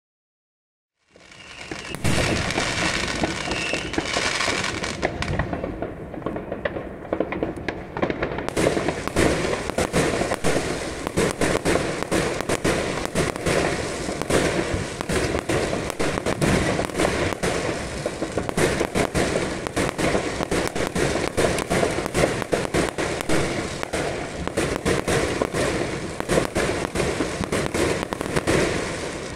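Aerial fireworks going off in a dense barrage: many rapid bangs and crackles, one on top of another. The barrage starts about a second in and keeps going without a break.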